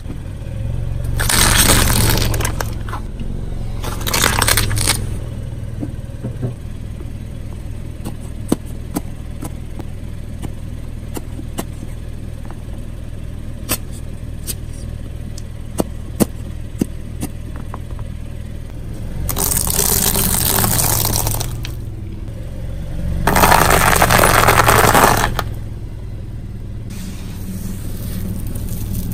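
A car idling while its tyre rolls over and crushes objects: a couple of short crunching bursts, then a long run of scattered small cracks and pops, then two longer, loud stretches of crushing and tyre noise about twenty and twenty-four seconds in.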